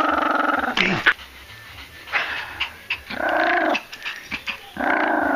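A tiny Maltipoo growling to guard a box of ammunition from a reaching hand: resource guarding. A long growl breaks off about a second in, a shorter growl comes in the middle with a few sharp clicks around it, and a long growl starts again near the end.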